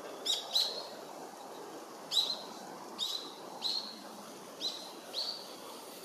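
Male bull-headed shrike giving seven short, sharp calls in loose pairs, each dropping quickly in pitch, over a steady low background hum.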